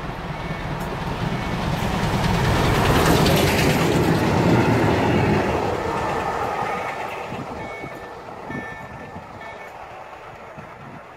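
Steam-hauled passenger train passing at speed: the locomotive's noise swells to its loudest a few seconds in, then the rumble and clatter of the carriages fade away as the train leaves.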